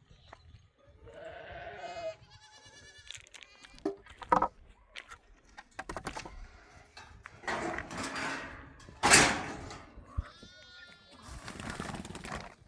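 Livestock bleating several times, short calls with a wavering, trembling pitch, with rustling and a loud sudden noise about nine seconds in.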